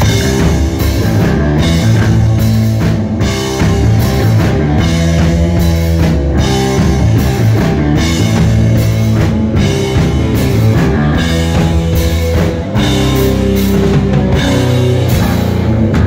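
A rock band playing live: a drum kit keeping a steady beat under loud electric guitars.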